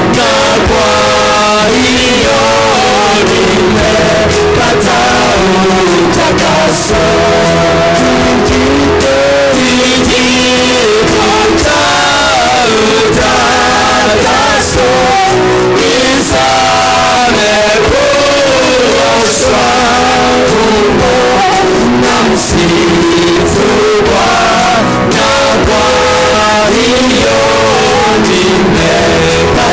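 Church worship music: voices singing held, sliding melody lines over a steady instrumental band with drums, loud and continuous.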